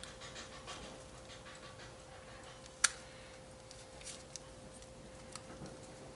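Faint handling of a car's wiring harness and its plastic loom: small rustles and clicks, with one sharp snap about three seconds in, over a faint steady hum.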